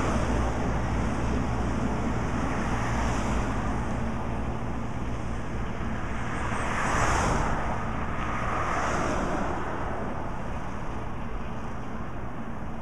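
Kubota tractor's diesel engine running steadily while pulling a batwing rotary mower through roadside grass, slowly fading as it moves off. Passing road traffic swells by about seven seconds in and again near nine.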